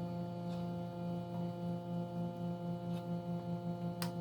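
Steady electrical hum made of several low tones, its lowest part throbbing a few times a second. There is a sharp click near the end.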